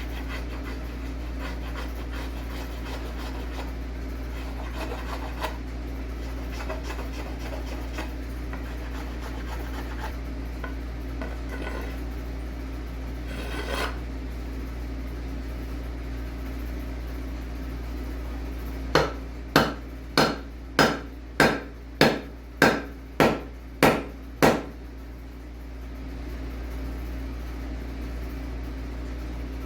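Ten sharp hammer strikes, about two a second, after quieter scraping and tapping of hand tools on wood. A steady low hum runs underneath.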